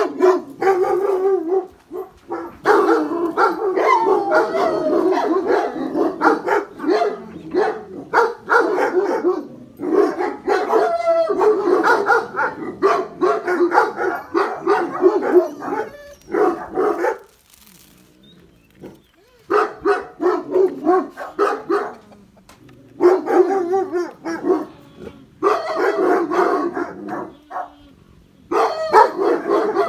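Dogs barking hard in long, dense runs, broken by a few short pauses in the second half: alarm barking at a masked stranger in the yard.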